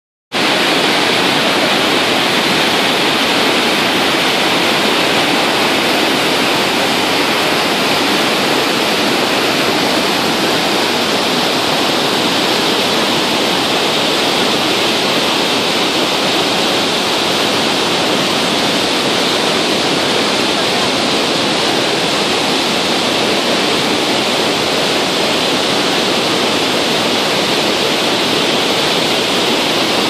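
Steady, loud rush of water from Iguazu Falls, a huge waterfall of many cascades plunging into the river gorge; an even, unbroken noise with no change in level.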